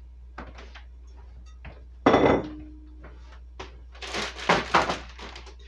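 Kitchen handling sounds: a few light knocks of a glass bowl and dishes on a wooden table, then a loud thunk with a short ring about two seconds in. About four seconds in, a plastic zip-top freezer bag crinkles as hands work inside it.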